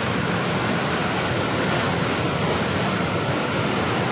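Muddy flash-flood water rushing and churning over a concrete weir, a steady, dense water noise.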